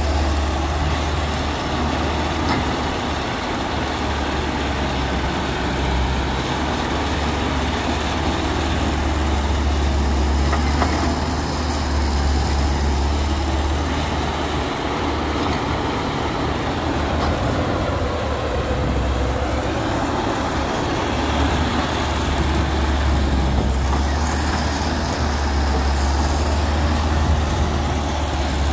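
Caterpillar crawler excavator's diesel engine running steadily under working load as it digs and swings, a strong low hum that swells and eases a little with the hydraulic work.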